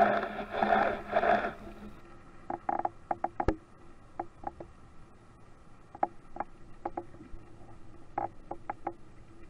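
Underwater sound picked up by the diver's camera: a muffled rushing burst at the start, then faint hiss with scattered sharp clicks and knocks, the sharpest about three and a half seconds in.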